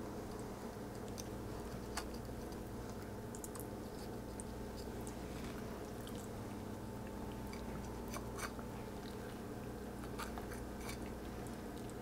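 Fillet knife working under a burbot's rib bones, with faint scattered crunches and clicks as the blade cuts through flesh and bone. A steady low hum runs underneath.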